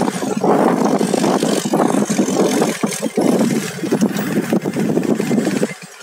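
Motorcycle engine running while riding, mixed with rushing, buffeting wind noise that rises and falls unevenly. It drops away just before the end.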